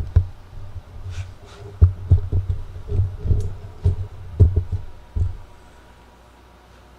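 Irregular low thumps and knocks with light clicks from hands and tools working inside a 1965 Mustang's door, stopping about five seconds in.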